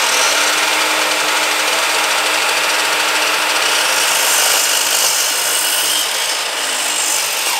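Electric sliding compound mitre saw running at full speed and cutting through a 12 mm primed pine lining board: a steady motor whine over loud, hissing cutting noise, which dies away near the end.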